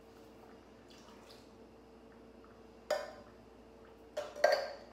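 Canned diced tomatoes tipped into a pot of broth with wet splashing, then a sharp clink about three seconds in and a few louder knocks of metal against the pot or counter near the end.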